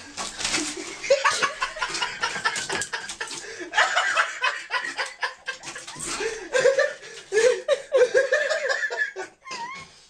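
Laughter in repeated bursts over rustling and knocking as a cat scrambles and pushes into a cluttered gap.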